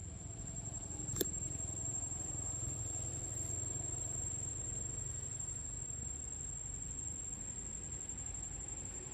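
Outdoor ambience: a steady high-pitched insect drone over a low rumble, with a single sharp click about a second in.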